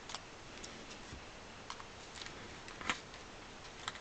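Small scissors snipping a piece of baking paper: a few faint, sharp snips and clicks, the loudest about three seconds in.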